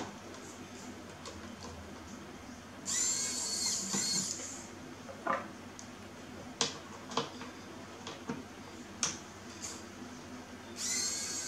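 Electric precision screwdriver whirring in two short spins, about three seconds in and again near the end, backing screws out of a metal keyboard frame. Light clicks and taps fall between the spins.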